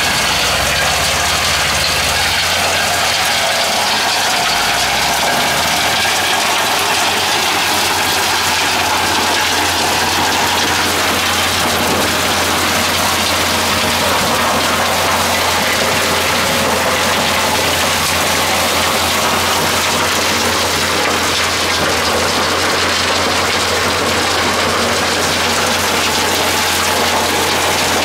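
Gold mining trommel running: a steady engine drone under the continuous rattle of gravel and rock tumbling inside the turning perforated steel drum and its gear drive.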